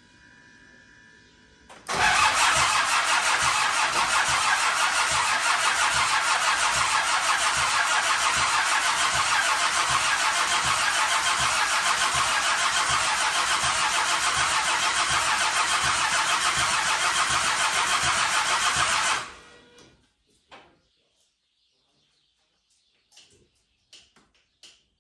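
Starter motor cranking a Land Rover Td5 five-cylinder diesel for about seventeen seconds, with steady, even compression beats. The engine never catches and the cranking stops abruptly.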